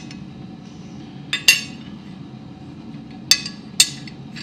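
Light metallic clinks of steel pieces knocking together as tong halves and tools are handled: a pair about a second and a half in, then two more half a second apart past three seconds. A steady low hum runs underneath.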